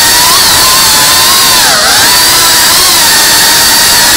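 FPV racing quadcopter's brushless motors whining loudly, the pitch wavering up and down with the throttle over a harsh rush of propeller noise.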